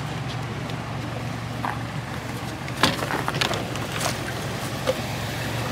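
Vehicle engine running at idle, a steady low hum, with a few brief clicks and knocks around the middle.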